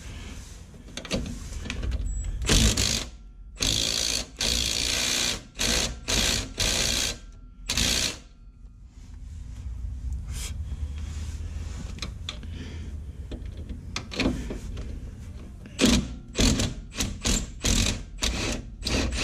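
Power ratchet running in short bursts, backing out the bolts that hold the factory rear sway bar's mounts to the axle. There is a run of longer bursts in the first half, a quieter stretch, then a quick string of short bursts near the end.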